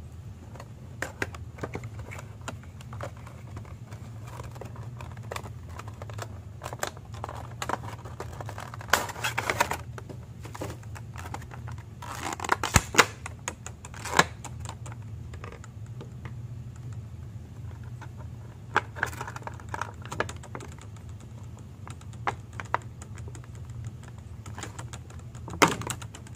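Hands unboxing a vinyl Funko Pop! figure: scattered taps and clicks of the cardboard box and clear plastic blister insert, with a few louder bursts of plastic crinkling as the figure is worked free of the blister.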